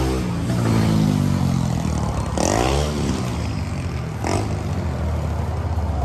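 A motor vehicle passing on the road, its engine pitch falling as it goes by, over a low steady engine rumble. Two short louder noises come about two and a half and four seconds in.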